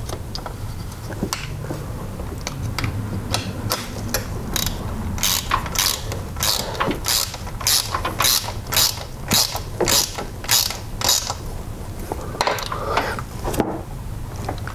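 Ratchet wrench tightening the timing belt tensioner bolt, its pawl clicking stroke after stroke, about two clicks a second and loudest through the middle stretch.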